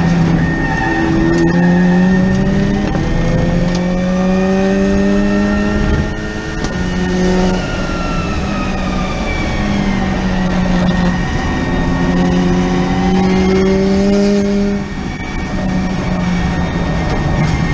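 In-car sound of the Forze hydrogen fuel-cell electric race car at racing speed. The electric drivetrain whine climbs in pitch as it accelerates and breaks off twice, about six seconds in and again near fifteen seconds, as it lifts and brakes under regeneration. Wind and tyre noise run underneath.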